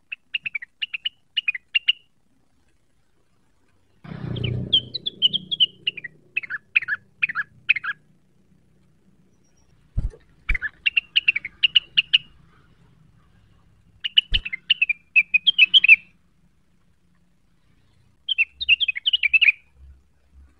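A rengganis, a small sunbird, singing in rapid bursts of high, quick chirping notes, five phrases of one to two seconds with short pauses between. A low rumble and a few faint knocks come in around the second phrase and later.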